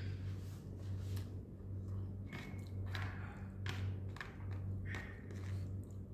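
Eating sounds: a spoon clicking and scraping in a plastic takeaway container, with chewing, as a string of irregular short clicks. A steady low hum runs under it.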